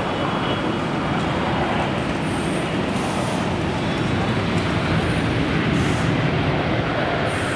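Boeing 777-300ER's GE90 jet engines, a loud steady roar as the airliner touches down and rolls out along the runway.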